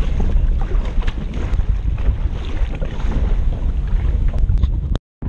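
Wind buffeting the microphone while a kayak is paddled, with light splashes of the double-bladed paddle dipping into the water. The sound drops out suddenly for a moment near the end.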